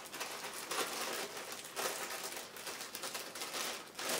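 Rustling and crinkling of a hook-and-loop sanding disc being handled, in several irregular short scrapes.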